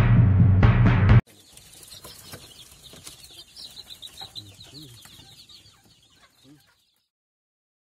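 Loud, drum-heavy intro music cuts off abruptly about a second in. A brood of chicks then peeps in rapid, faint high chirps, with a few low clucks from an adult chicken, and the sound stops about a second before the end.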